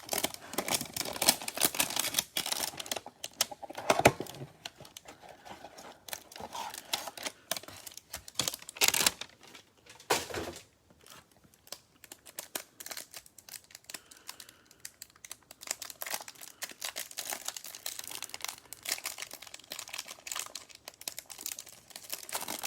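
Trading card pack wrapper crinkling and tearing open, with cards being handled and shuffled: a run of scratchy rustles and small clicks, with louder rips about 4, 9 and 10 seconds in.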